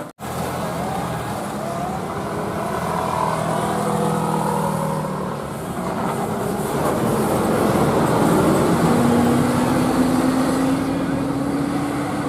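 Roadside traffic with a vehicle engine running; in the second half an engine hum rises slowly in pitch as the vehicle gathers speed.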